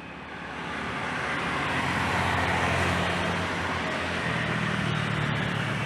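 Jet airliner engines running, a steady rushing noise with a low hum beneath it that swells over the first two seconds and then holds.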